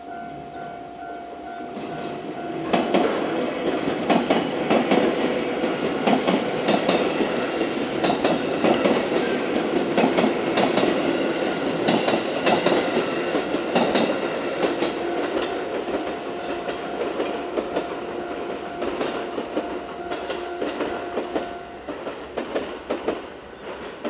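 JR West 221 series six-car electric train passing over a level crossing, loud from about three seconds in, its wheels clattering and clicking over the rails. A Japanese level-crossing warning bell rings steadily underneath and stops near the end.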